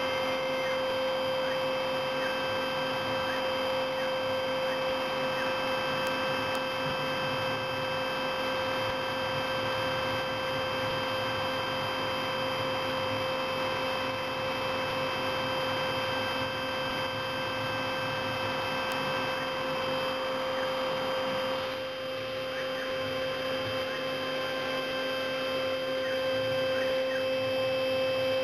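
CNC milling machine's spindle whining at one steady high pitch while it mills block material, with a rough cutting noise under it that eases somewhat about three-quarters of the way through.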